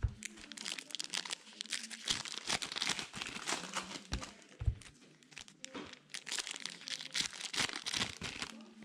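Foil wrappers of Donruss baseball card packs crinkling and tearing as they are ripped open by hand, in a dense run of irregular crackles.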